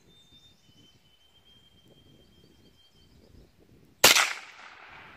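A single .22 long rifle shot from a Ruger 10/22 about four seconds in: one sharp crack with a short echoing tail. Before it there is only faint background with a thin high whistle and some chirping.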